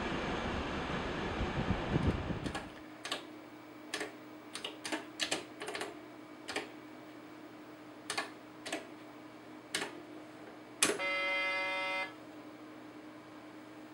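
Train rumble that cuts off about two and a half seconds in, followed by about a dozen irregular keystrokes on a railway signalling terminal's keyboard as a train number is entered, over a steady electrical hum. Near the end the terminal gives a single beep lasting about a second.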